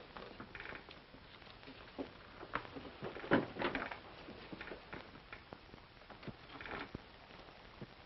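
Faint, scattered footsteps and shuffling on wooden floorboards, with a few short soft hissing rustles, over the steady hiss of an old film soundtrack.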